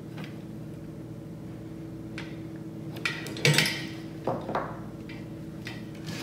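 Metal clinks and knocks from the aluminium gantry of a DIY CNC mill as it is moved along its aluminium rails on roller bearings. There are a handful of separate clicks, the loudest about halfway through, over a faint steady hum.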